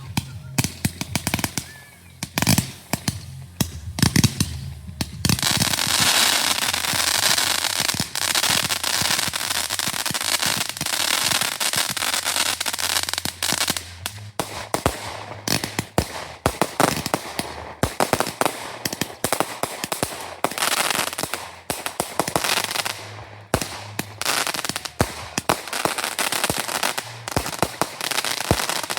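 Fireworks going off in a rapid series of bangs. A dense, unbroken crackle runs from about five seconds in to about fourteen seconds, followed by a run of separate bangs and crackles.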